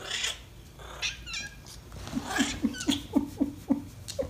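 Domestic cat vocalising: a short call at the start and a couple more about a second in, then a quick run of about seven short, clipped calls, roughly four a second, in the second half.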